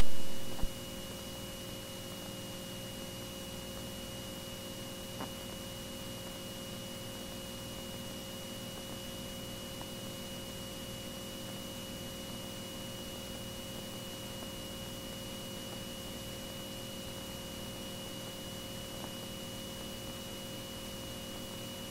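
Faint steady electrical hum and hiss on the aircraft's intercom audio line, with a thin high whine over it and one small click about five seconds in.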